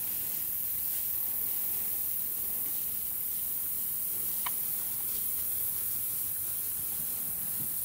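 Steady high-pitched hiss with no clear source, and one brief faint chirp about four and a half seconds in.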